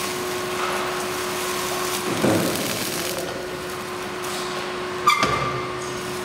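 Clear plastic shrink film rustling and crinkling as it is pulled by hand over the rollers of a shrink wrap machine, over a steady hum. A dull knock comes about two seconds in and a sharp click about five seconds in.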